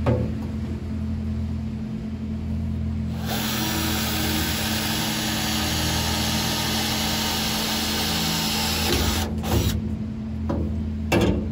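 Cordless drill boring screw holes through a sheet-metal transmission tunnel panel into the subframe beneath. It runs steadily for about six seconds, starting about three seconds in, then stops, followed by a couple of short knocks near the end.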